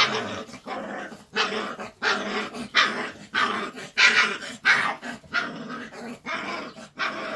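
Caucasian Shepherd puppy, about four weeks old, giving a run of short, high-pitched puppy barks and growls, roughly one and a half a second.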